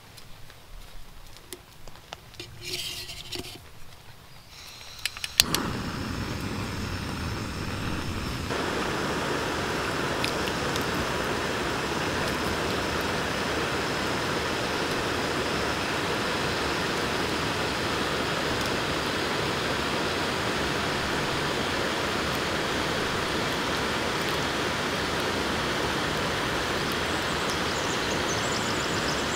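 Backpacking gas canister stove lit with a sharp click about five seconds in, then burning with a steady hiss that steps up louder about three seconds later.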